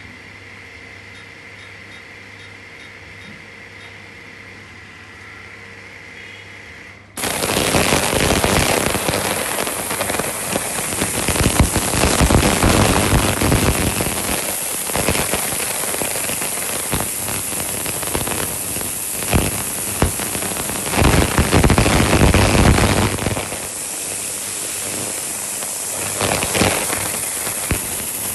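Stainless steel sous vide tank's ultrasonic cleaning function switching on about seven seconds in: a sudden loud, harsh crackling hiss that runs on unevenly. Before it starts there is only a faint steady hum with a thin high tone.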